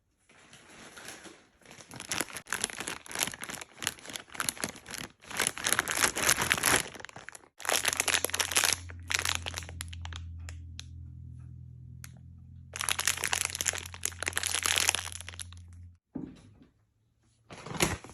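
Plastic packaging being crinkled and rustled in repeated bursts of a second or two, with short pauses between. A steady low hum comes in partway through and cuts off about two seconds before the end.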